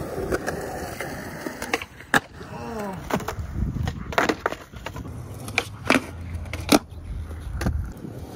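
Skateboard wheels rolling on concrete, broken by several sharp tail pops and clacking board landings.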